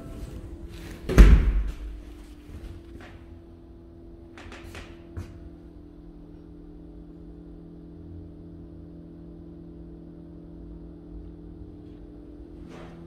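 An interior door thumps shut about a second in. After that come a few faint clicks and a low steady hum.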